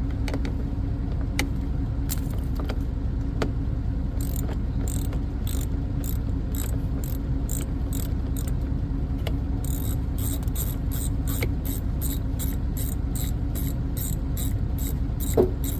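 Hand ratchet on a 10mm socket clicking steadily, about two to three clicks a second, as it backs out a bolt; the clicking starts about four seconds in, after a few single clicks. A steady low hum runs underneath.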